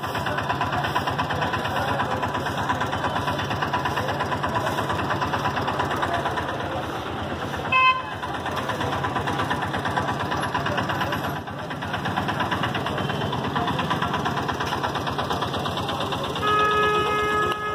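Street traffic noise dominated by an auto-rickshaw engine idling close by with a rapid chugging pulse. A short horn beep sounds about eight seconds in, and a horn honks for about a second near the end.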